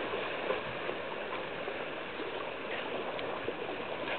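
Small waves washing steadily onto a sandy beach: an even, continuous wash of shallow surf.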